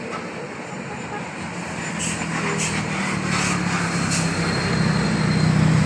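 A bus engine running and growing steadily louder as the bus approaches, with a few short hisses about two to four seconds in.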